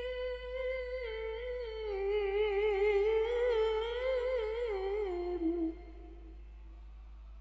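A woman reciting the Quran in melodic tilawah style, unaccompanied. She holds one long, steady high note, then winds down through quick wavering ornaments in a falling line, and the phrase ends nearly six seconds in.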